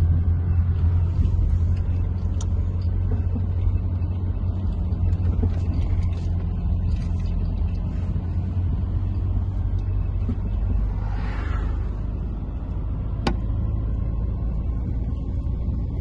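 Steady low rumble of engine and road noise inside a moving car. There is a brief rushing sound a little past the middle and a single sharp click near the end.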